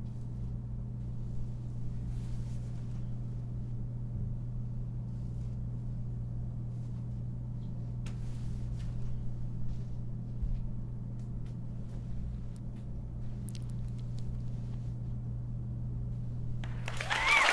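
Steady low hum of studio room tone with a few faint rustles and clicks; near the end, studio audience applause with whoops breaks out.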